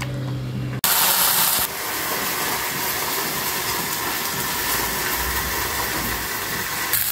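A steady hissing noise with no clear pitch, opening with a brief louder burst about a second in.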